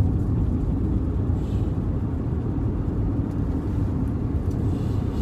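Steady low rumble of a car driving: engine and road noise with no distinct events.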